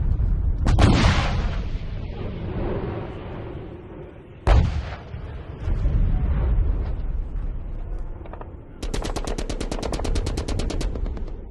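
Battle sound effects: a blast about a second in and another about four and a half seconds in, each followed by a long low rumble. Near the end comes a two-second burst of machine-gun fire, about a dozen shots a second.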